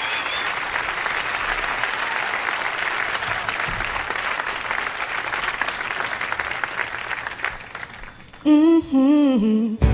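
Concert audience applauding after a song, the clapping thinning out after about eight seconds. Near the end a single voice comes in over the microphone for a moment.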